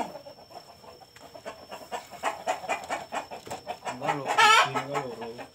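KUB × Bangkok crossbred kampung chickens clucking, with one loud drawn-out call about four seconds in, over a run of light clicks and rustles.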